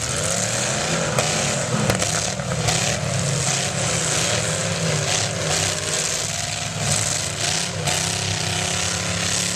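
Several demolition derby cars' engines running and revving unevenly, their pitch rising and falling, with a couple of sharp knocks early on.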